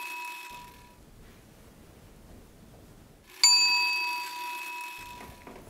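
A bell ding sound effect: the tail of one ding fades out in the first second, and a fresh ding strikes about three and a half seconds in and rings out over about a second and a half, marking a new title card.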